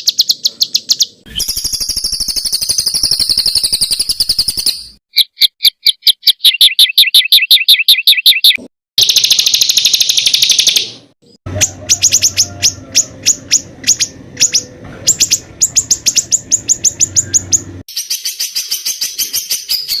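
Songbird training compilation of rapid, harsh repeated-note bursts ('tembakan kasar'), fast high trills of many notes a second, spliced so that a different call pattern cuts in abruptly every few seconds.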